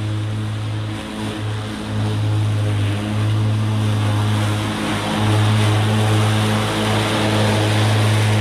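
Cub Cadet LT42e lithium-ion electric lawn tractor mowing tall grass: its electric motors and spinning cutting-deck blades give a steady low hum over a rushing noise.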